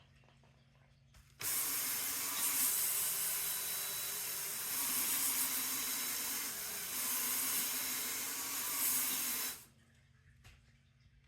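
Power drill fitted with a scrub brush, spinning against a surface with a loud scrubbing hiss and a faint steady whine. It starts suddenly about a second in and stops suddenly about eight seconds later, rising and falling slightly a couple of times as it is pressed and moved.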